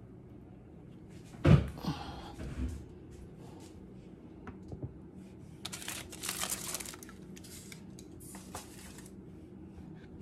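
A loud thump about a second and a half in, then crinkling rustles of aluminium foil past the middle and again shortly after, as a foil-lined sheet pan is picked up and handled.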